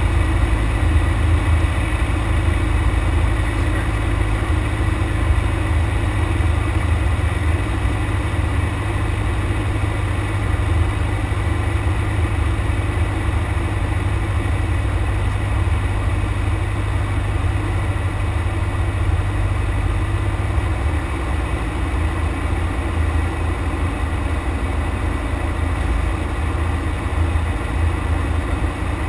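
Cessna 172's piston engine and propeller in cruise flight, a steady unbroken drone heard from inside the cockpit.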